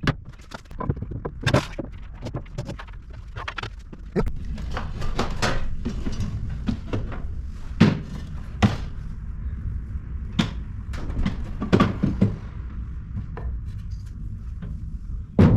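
Irregular knocks and thuds of a hammer tapping a wooden board and its protruding wood screw into place against a wall, over a steady low hum.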